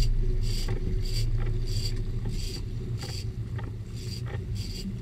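Sport-fishing boat's engine running steadily, with a regular high-pitched rasp repeating about one and a half times a second over it.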